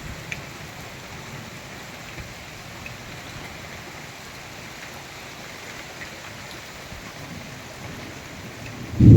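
Steady rain falling during a cyclone, with occasional drops ticking on a surface. Near the end, a loud low rumble sets in suddenly.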